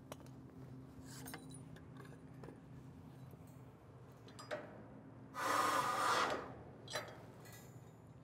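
Metal clinks and rubbing from handling a rail car's air-brake hose fittings, with a single burst of noise lasting about a second near the middle, the loudest sound, and a sharp clink just after. A low steady hum runs underneath.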